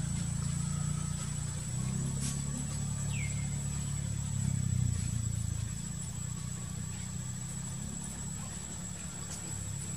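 Low, steady engine hum of an idling vehicle, with a single short, high, falling squeak about three seconds in.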